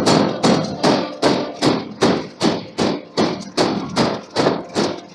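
Forging hammer striking hot steel in a steady rhythm, about two and a half blows a second, each blow ringing briefly.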